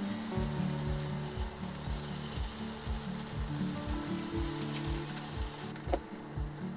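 Beef-wrapped vegetable rolls sizzling in sauce in a frying pan, over background music with a steady beat. The sizzle falls away near the end, just after a sharp click.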